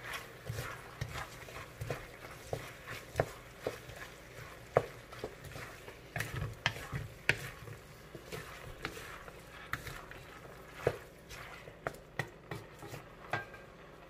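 A cooking utensil stirring vegetables and corned beef in a frying pan, knocking and scraping against the pan irregularly every half second or so, with a quiet frying sizzle underneath.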